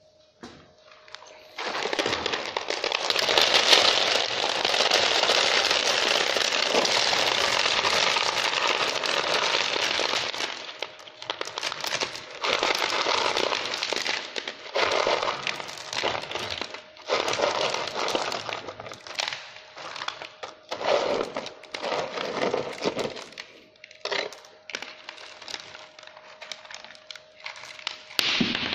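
Small stones poured from a plastic crate into a bait boat's hopper, filling it for a capacity test: a continuous rattling rush for about nine seconds, then shorter pours and stones shifted by hand in separate bursts.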